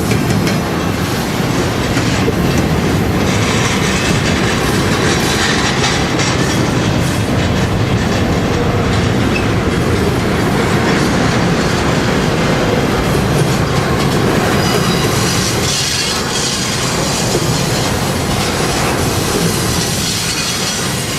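A train rolling past, its wheels clacking over the rail joints, with some wheel squeal. The noise stays steady and loud throughout.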